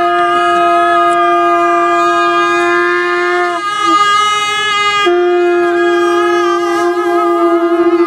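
Tibetan gyaling (double-reed shawm) playing long held notes. It moves to a different note about three and a half seconds in and returns to the first note about five seconds in. Near the end the note flutters.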